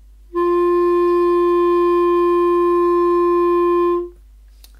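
Clarinet playing one steady sustained note for nearly four seconds. It speaks cleanly at once and holds without wavering: the good responding, resonant tone a beginner aims for.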